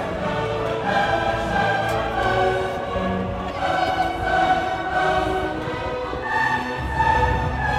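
Music with long held notes that change pitch every second or so.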